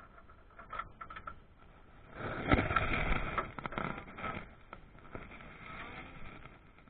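Close handling noise of clothing and a seatbelt brushing over a chest-mounted microphone: a few light clicks, then a stretch of rustling about two seconds in with one sharp click in it, fading to fainter rustle.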